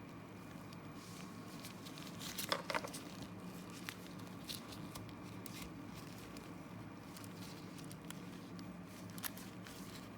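Light metallic clicks and scrapes of an operating key being worked in a Nix Pix removable-core padlock, with the loudest cluster of clicks about two and a half seconds in and a few single clicks after.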